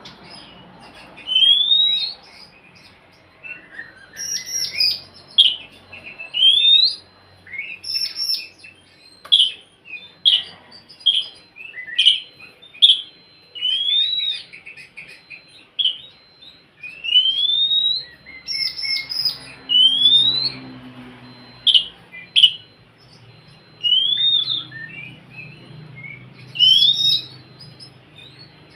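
Oriental magpie-robin (kacer) singing: a string of loud, rising whistled notes about one a second, mixed with short chirps.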